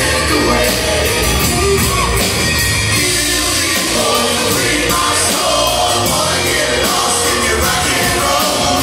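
Live rock band playing: strummed acoustic guitars over drums, with a man singing the lead vocal.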